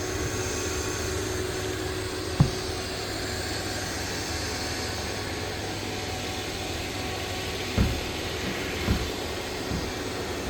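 iRobot Roomba Plus 405 robot vacuum running with a steady whirring hum while it cleans, broken by a few dull thumps, one about two seconds in and three close together near the end.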